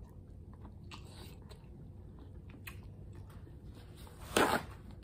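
Close-miked mouth sounds of someone chewing a bite of seafood-boil food: soft wet clicks and smacks. About four seconds in, a short loud rustle, a paper towel being pulled from the roll.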